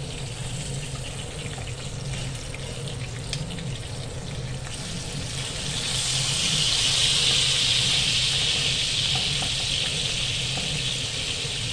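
Small dried salted fish frying in hot oil in a wok, a steady sizzle that grows louder about halfway through.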